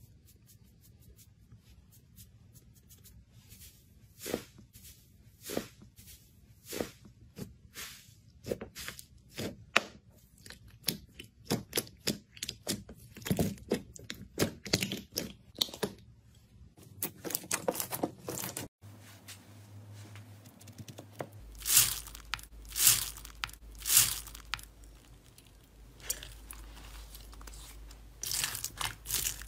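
Slime being poked, pressed and squeezed by hand: a long run of sharp crackling pops and clicks. There are a few louder pops a little past the middle and denser crackling near the end.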